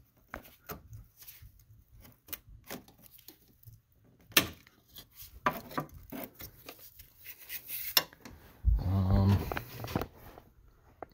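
Brittle, heat-damaged plastic wiring-harness clips being pried and pulled off in a car's engine bay: scattered clicks, rustles and scrapes, with a sharp snap about four seconds in and another near eight seconds.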